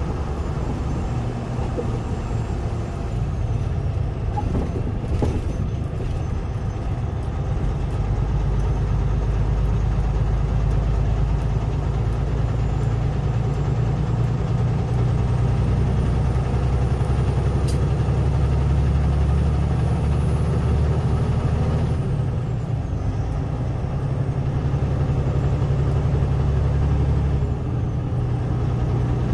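Semi truck's diesel engine running steadily as the truck drives, heard from inside the cab as a deep low drone. It gets louder about eight seconds in and drops back near the end.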